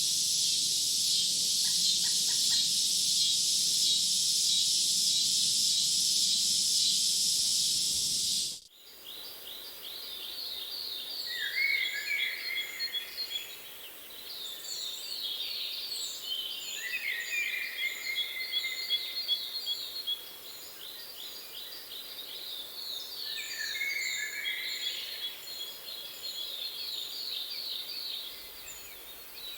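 A dense, steady, high-pitched insect chorus that cuts off abruptly about eight seconds in, giving way to several songbirds singing: fast trills of short falling notes, thin high chirps and a few lower warbled phrases, overlapping throughout.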